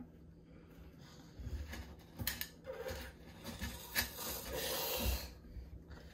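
Plastic aquarium plant being pushed into gravel in a glass fishbowl: intermittent rubbing and gritty scraping with a few sharp clicks, heaviest in the last couple of seconds.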